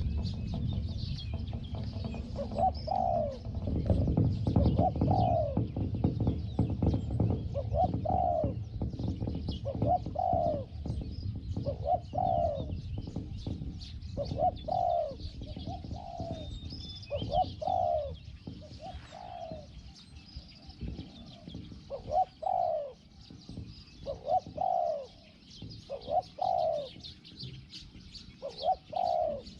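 Spotted dove cooing over and over, a short coo about every two seconds. Small birds chirp faintly in the background, and there is a low rumble during the first third.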